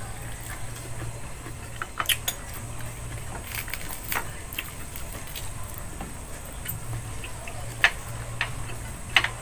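Close-up eating noises from people eating fried chicken and rice by hand: chewing and mouth sounds with scattered sharp clicks and taps, the loudest about two seconds in and near the end, over a low steady hum.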